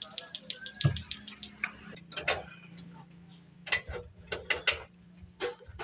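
Ratchet wrench clicking in quick, even strokes, about six a second, which stop about a second in. Then comes a thump, followed by scattered metal knocks and clinks of hand tools as the motorcycle engine is fitted back into the frame.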